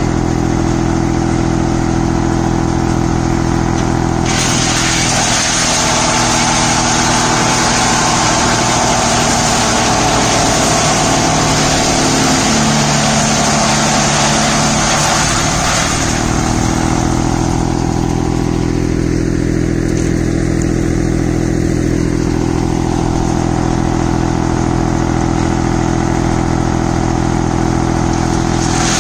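Tractor-driven wood chipper running, with the tractor engine's steady drone underneath. From about four seconds in, a loud rushing, shredding noise as branches are fed through, and the engine's pitch sags under the load. After about sixteen seconds the shredding stops and the engine settles back to its steady note.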